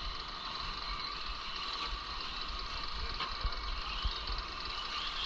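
Radio-controlled 4wd short-course trucks running on the track, a steady distant whir with a few light clicks and clatters.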